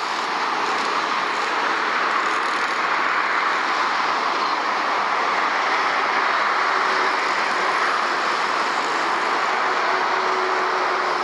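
Jet engines of a Singapore Airlines Airbus A380 running as the airliner rolls along the runway: a steady, even rushing noise, with a faint hum that rises slightly in pitch in the second half.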